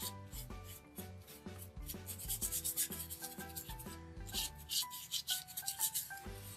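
Paintbrush rubbing over cardboard in quick back-and-forth strokes, in two runs starting about two seconds in and again past four seconds, over soft background music with a steady beat.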